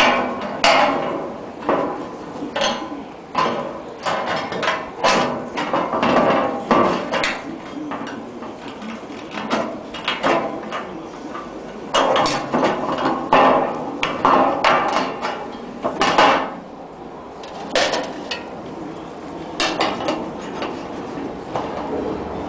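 Terne-coated sheet-metal roof panel being cut by hand, a run of sharp irregular clicks and snaps a few times a second, with a pause around the middle.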